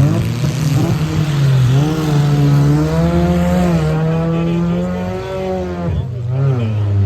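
Several compact car engines revving hard in a demolition derby, their pitches rising and falling over one another.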